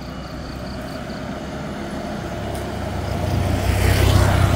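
A motor vehicle approaching and passing, its engine and tyre noise building steadily to a peak about four seconds in.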